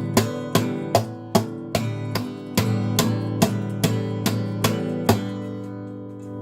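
Acoustic guitar strumming chords, about two to three strokes a second. The strumming stops about five seconds in, and the last chord is left ringing and fading.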